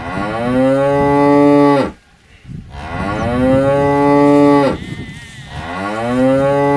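A cow mooing three times, each moo a long call that rises at the start and then holds its pitch for about two seconds, with short pauses between them; the third begins near the end.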